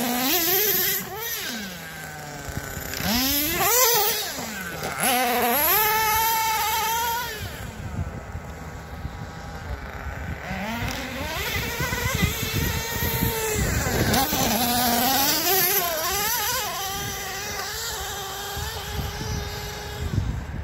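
Nitro RC monster truck's small two-stroke glow engine revving up and down again and again as it is driven, its pitch sweeping high and falling back several times. The owner says it cuts out when given a lot of throttle, a sign the mixture still needs adjusting.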